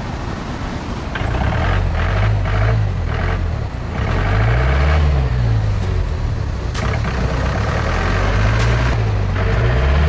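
Mahindra jeep engine revving up and falling back in several surges as it pulls the loaded jeep up a rutted, muddy off-road track.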